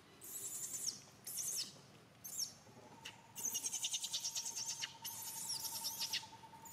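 Baby macaque screaming in distress: a series of high-pitched cries, a few short ones, then from about three seconds in a longer run of rapid shrieks.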